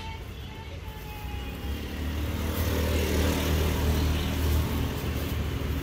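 A motor vehicle's engine, a low steady hum that grows louder from about a second and a half in as it approaches.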